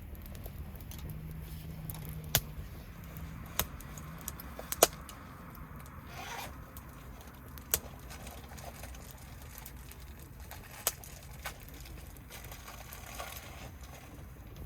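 Wood bonfire crackling: sharp pops of burning wood every second or so, the loudest about five seconds in, over a low steady background.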